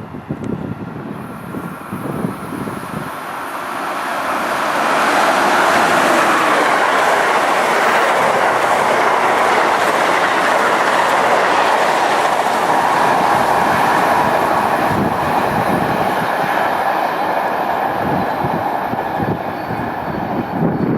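Amtrak Crescent passenger train racing past at speed: the loud, steady rush of wheels on rail with clickety-clack builds over the first few seconds and holds, then cuts off abruptly at the end. Gusty buffeting on the microphone comes early on.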